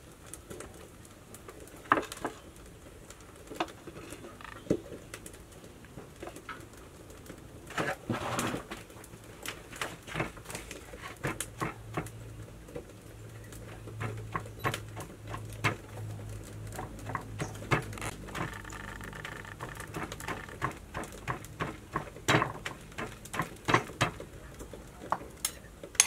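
Stone pestle pounding in a stone mortar: a run of short knocks, only a few in the first seconds and then several a second from about ten seconds in.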